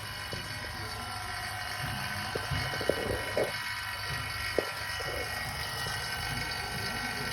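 A small electric motor running steadily with a whirring, many-toned whine, with a few light knocks about two to four and a half seconds in.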